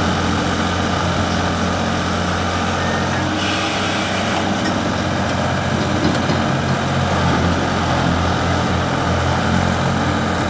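An engine running steadily, with a brief hiss about three and a half seconds in.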